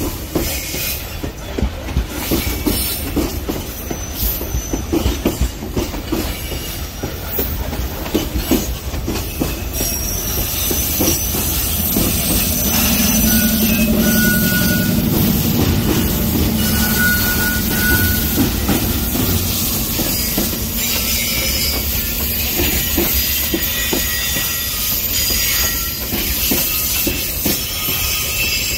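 Loaded freight wagons rolling past close by, their wheels clacking over the rail joints in rapid irregular knocks. There is a steady rumble in the middle, with short high-pitched wheel squeals now and then.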